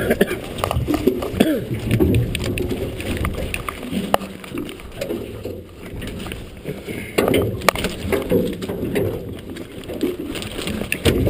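Muffled handling noise from picking a salmon gillnet on a boat: irregular knocks and clicks over water sloshing, dulled by a waterproof camera housing.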